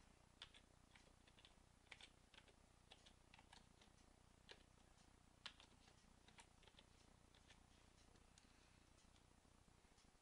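Faint, slow, irregular keystrokes on a computer keyboard as a short command is typed: separate clicks with gaps between them.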